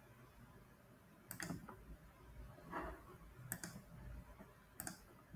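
Three faint computer mouse clicks, each a quick double tick, spaced about a second or two apart.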